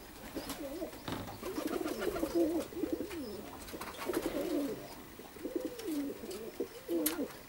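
Perm domestic pigeons cooing, a steady run of low, wavering coos repeated one after another, with a short click near the end.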